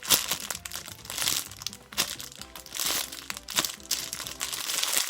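Crinkling of a squishy toy's packaging as it is handled and squeezed, in irregular bursts, with background music playing underneath.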